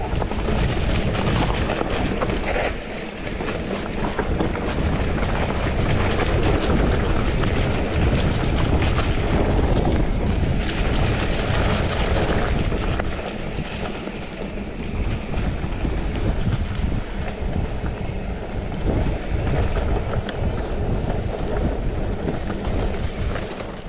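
Bicycle riding fast down a dirt trail: wind buffets the microphone over a continuous rumble from the ride, rising and falling in loudness.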